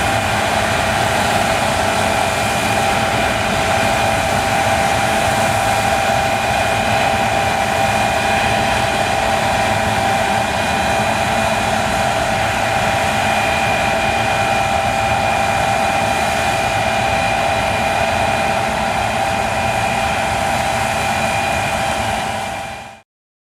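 John Deere combine harvester running steadily, a constant whine over a broad rush of machine noise, fading out quickly near the end.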